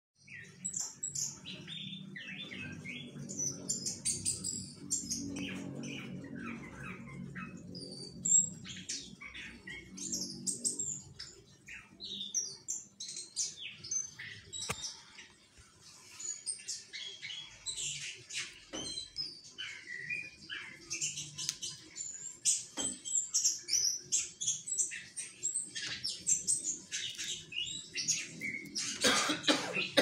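Orange-headed thrush (anis kembang) singing a long, continuous, varied song of quick high whistled notes and phrases, with only brief pauses.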